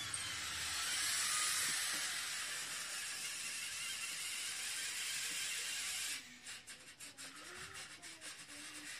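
LEGO robotic arm's EV3 motors and gear trains whirring as the arm moves. About six seconds in the whir drops away, leaving a quieter wavering motor tone and light gear clicks.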